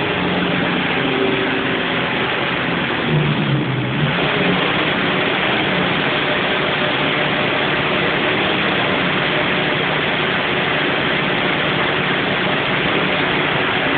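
Bobcat skid-steer loader engine running steadily while working, heard from inside the cab, with a brief change in engine note about three seconds in.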